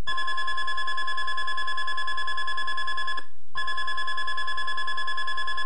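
Weather radio alert tone: a steady, high electronic tone held for about three seconds, cut off briefly, then sounding again. It signals an incoming Environment Canada severe thunderstorm warning.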